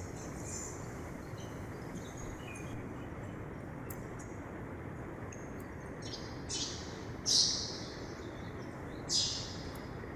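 Mountain river rushing steadily, with a bird calling a few times in short, high notes over it, the loudest about seven seconds in.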